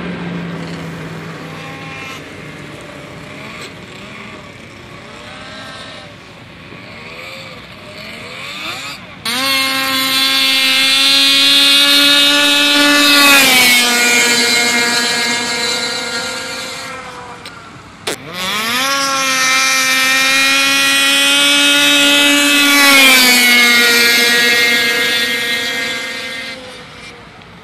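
Racing snowmobile engines at full throttle. About nine seconds in, a sled's engine comes in loud, climbs to a high steady note, then drops in pitch as it passes close. A second run after a sharp click does the same and fades out near the end.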